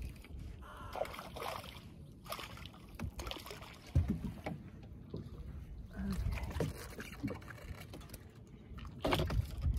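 Steady low rumble of wind and lapping water around a small fishing boat, with one sharp knock about four seconds in.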